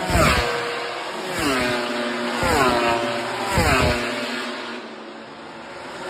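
MotoGP racing motorcycles passing at full speed on the straight one after another. About four go by, each engine note dropping in pitch as it passes.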